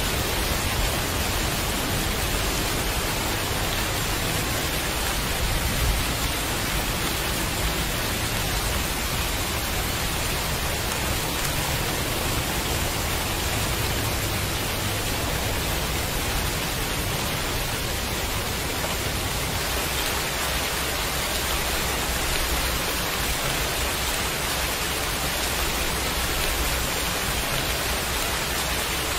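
Heavy rain falling steadily, an even hiss of drops with no breaks or changes.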